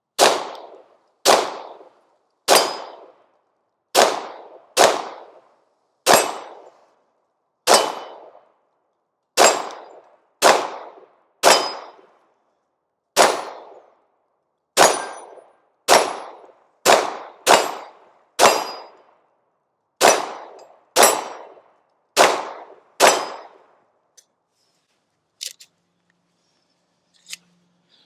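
About twenty unsuppressed 9mm pistol shots from a Bear Creek Arsenal BC-102 Grizzly Glock-clone, fired one at a time at a steady pace of roughly one a second, each echoing briefly. The shooting stops about 24 seconds in, leaving a few faint ticks.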